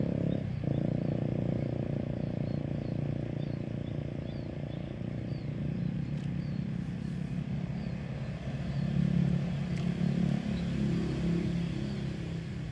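A motor running steadily with a low, even hum that swells a little about nine seconds in, with faint high chirps repeating over it.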